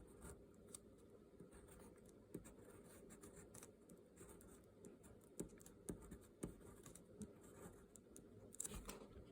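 Faint scratching of a balisong-style pen writing on paper, with scattered light ticks of the tip and hand against the page.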